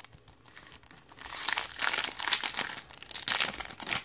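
Foil wrapper of a Topps Platinum trading card pack crinkling loudly as it is ripped open by hand, starting about a second in after a few faint clicks.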